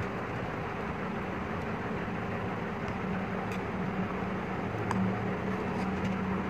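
Steady mechanical hum and hiss, like a running fan or motor. A few faint light clicks sound over it, about three and a half and five seconds in, as small metal parts of an LPG reducer are handled.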